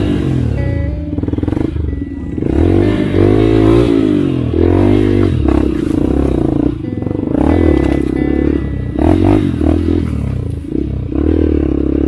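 Dirt bike engine revving up and down over and over as the throttle is opened and closed in short bursts, its pitch rising and falling many times.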